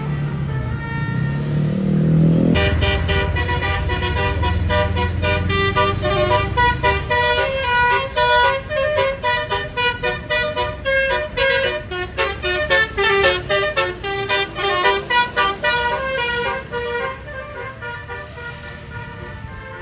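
Bus telolet horn, a Basuri set of multi-tone air horns, playing a fast melody of short notes for about fifteen seconds, then dying away. Just before it the bus engine revs up, rising in pitch.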